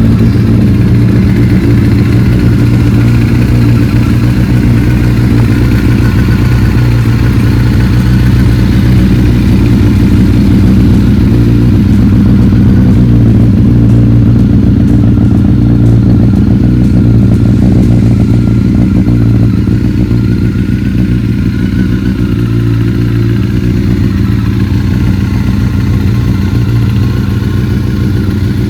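Honda CBR954RR Fireblade's 954 cc inline-four engine running steadily at idle, just after being brought back to life for the first time after a full rebuild. It settles a little quieter about twenty seconds in.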